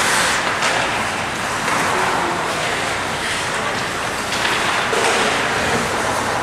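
Ice hockey game in play in a small rink: a steady wash of skates scraping the ice and arena noise, with faint scattered knocks of sticks and puck.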